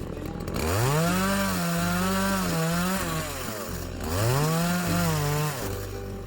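Two-stroke chainsaw engine revved up twice from idle, each rev held for about two seconds with its pitch wavering slightly, then dropping back to idle.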